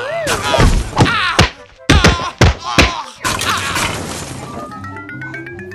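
Cartoon sound effects over background music: a wobbling whistle glide dying away, then a string of sharp thuds and whacks over the first three seconds, and near the end a rising tone made of quick ticking steps.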